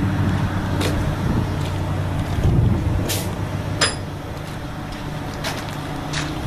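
Truck engine idling steadily, with a few sharp clicks over it.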